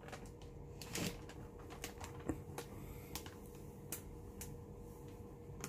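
Faint, scattered clicks and crinkles of a bag of flour being handled as flour is tipped out of it, over a faint steady hum.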